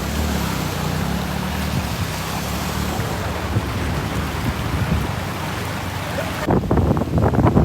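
Loud steady rushing noise with a low engine-like hum beneath it, cut off abruptly about six and a half seconds in, where voices begin.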